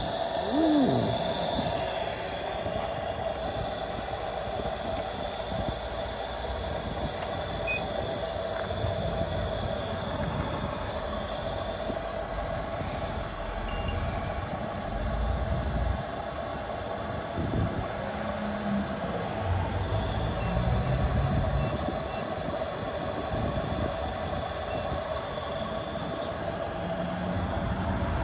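Steady mechanical hum of a hydrogen fuelling dispenser during a fill, with a thin constant high whine over it.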